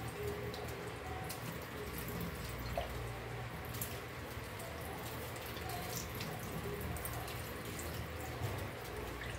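Tap water running and splashing into a stainless steel sink as a whole tilapia is rinsed and rubbed by hand, with small drips and splashes throughout.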